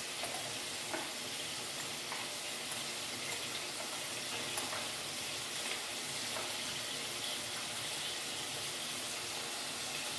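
Minced meat and chopped onion frying in oil in an aluminium pot: a steady sizzle, with a few faint clicks.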